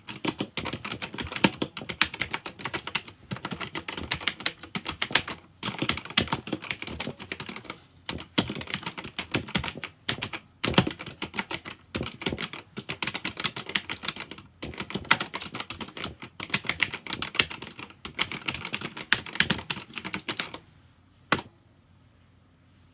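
Fast typing on a computer keyboard, rapid key clicks in bursts broken by brief pauses. The typing stops near the end, followed by a single click.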